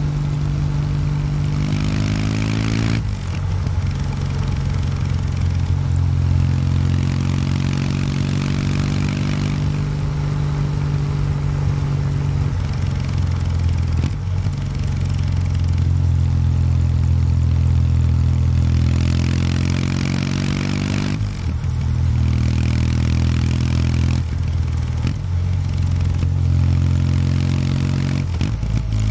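A 2019 Kawasaki W800 Street's air-cooled parallel-twin engine running through its stock exhaust while riding. The note climbs in pitch under acceleration and falls away sharply a few seconds in and again about two-thirds of the way through, with steady running between.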